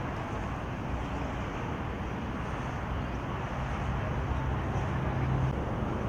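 Steady road traffic noise, with a low engine hum coming in about halfway through.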